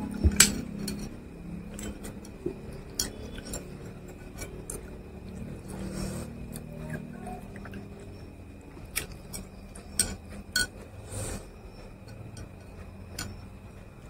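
Scattered sharp clinks and taps of a steel spoon and glassware on a plate and table, with the loudest clink about half a second in and a few more near the end.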